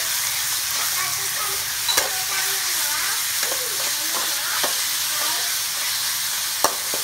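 Beef and garlic sizzling in a hot steel wok while a metal spatula stirs and scrapes them, with sharp clicks of the spatula striking the pan about two seconds in and again near the end.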